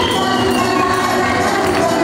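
Dance music with a held melody line, playing loudly and steadily, with a crowd of guests faintly beneath it.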